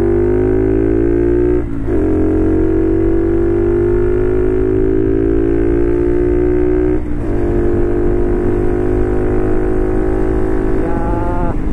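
Customized Honda Cross Cub JA45's 110 cc single-cylinder engine pulling through the gears under acceleration. Its note climbs steadily, then drops back at upshifts about two and seven seconds in, and falls away near the end. It has a loud, racy sound.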